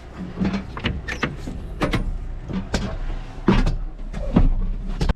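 Clicks and knocks of someone climbing into a tractor cab and working the door, over a steady low engine rumble that grows stronger past the middle.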